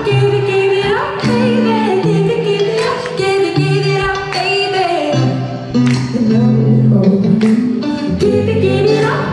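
Live pop band playing with a female lead singer singing into a microphone over held bass notes and occasional drum hits, heard from the audience.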